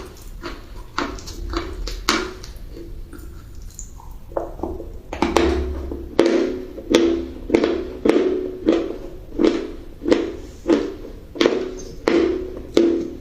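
Crunchy food chewed close to the microphone: a steady run of crisp crunches, about one and a half a second, with a brief lull before the chewing picks up again about four seconds in.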